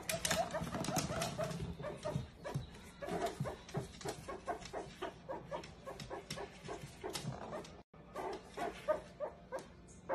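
A small pet mammal giving a rapid string of short, high squeaky chirps and whimpers, several a second, with a brief break about eight seconds in.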